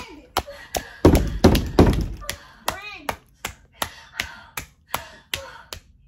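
Rapid, repeated knocking and banging on a closed interior door, about two to three blows a second, heaviest about a second in.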